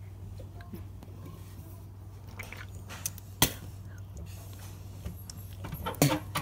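Quiet room with a steady low hum, broken by one sharp knock about three and a half seconds in and a couple more near the end.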